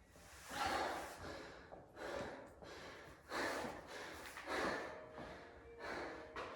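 A person breathing hard and fast: loud, noisy gasping breaths about once a second, the heavy panting of an athlete winded by sustained exertion.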